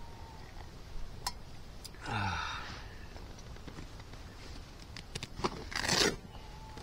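Handling noises as a shot rabbit is fetched out of a bag: two sharp clicks, a man's short falling sigh, scattered light knocks and a brief louder rustle near the end.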